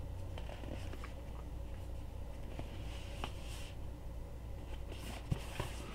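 Quiet room tone with a low steady hum, and a few faint taps and rubs from a cardboard box being held and turned over in the hands.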